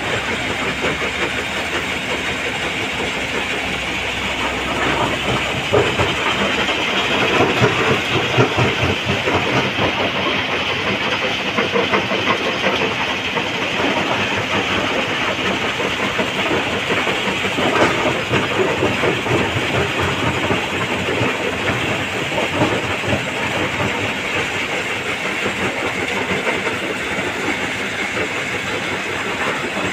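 A stone crusher running continuously with rock rattling through it, together with a Komatsu PC200 excavator's diesel engine working as it feeds the hopper. The noise is steady, with a few louder knocks of rock about a third of the way in and again past halfway.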